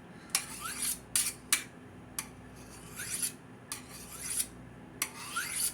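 Kitchen knife blade drawn across a sharpener in a series of quick scraping strokes, roughly two a second and irregularly spaced, metal rasping on the sharpening surface.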